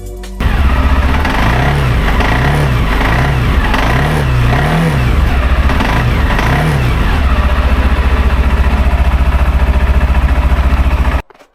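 Vehicle engine revving up and down over and over, then holding a steady, pulsing run before cutting off abruptly near the end.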